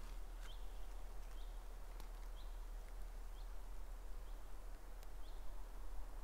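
A small bird repeating a short, high chirp about once a second over faint outdoor background, with a few faint clicks.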